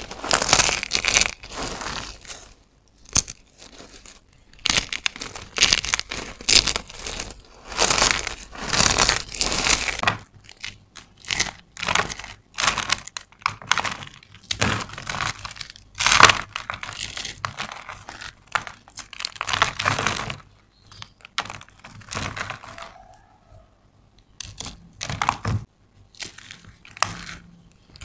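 Hands crushing dry carved soap: thin soap plates at first, then a soap cube crumbling between the fingers. Crisp crackling crunches come in repeated bursts every second or two, with short pauses between squeezes.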